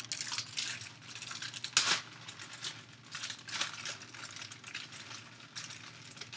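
Small plastic snack packets of carrots crinkling and rustling as they are torn open and handled, with irregular crackles and one sharper snap about two seconds in.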